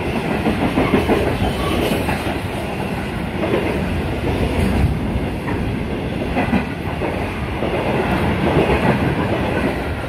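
Freight train wagons rolling past close by: a steady rumble, with the wheels clacking repeatedly over the rail joints.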